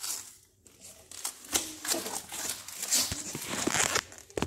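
Handling noise of hard plastic: irregular clicks, knocks and rustling as Nerf blasters and a plastic tub are moved about.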